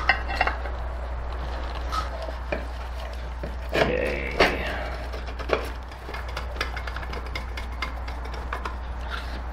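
Irregular light clicks, taps and knocks of aluminium ROV housing parts and wires being handled on a workbench, over a steady low hum.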